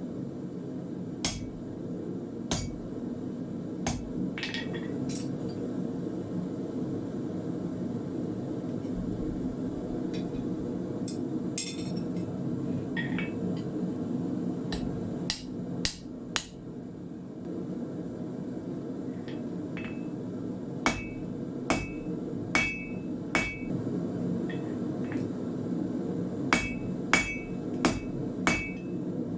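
Blacksmith's hammer striking hot iron on the anvil while forging nails from square bar. Scattered single blows at first, then quicker runs of ringing strikes in the second half, over a steady low rumble.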